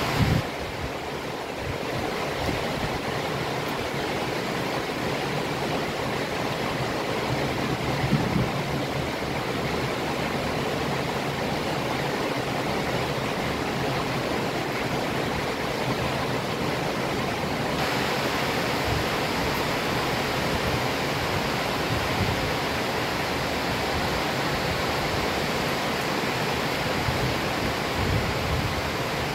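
Heavy rain falling steadily in a continuous hiss, with a couple of brief low rumbles, one at the very start and one about a quarter of the way in. About two-thirds of the way through, the hiss turns suddenly brighter and a little louder.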